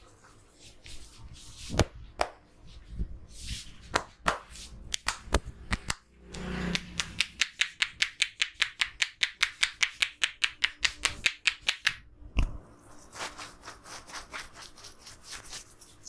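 A barber's hands tapping rapidly on a man's head during a head massage: a few scattered slaps first, then a fast, even run of loud taps, about seven a second, for several seconds. A single harder knock follows, then a lighter run of taps.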